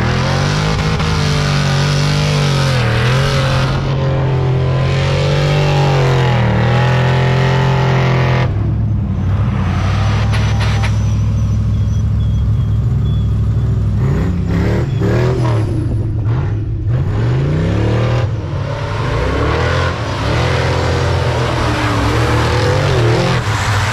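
Engines of lifted off-road trucks revving hard over and over while climbing a sand hill, the pitch rising and falling with each push of the throttle. About a third of the way in, the engine sound settles to a steadier, lower drone for several seconds before the revving starts again.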